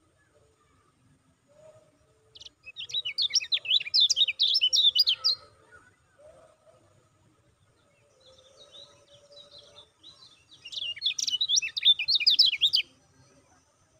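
Kecial kuning, a small yellow white-eye, singing two fast, high chattering bursts of its 'ciak ciak' song, the first a couple of seconds in and the second near the end.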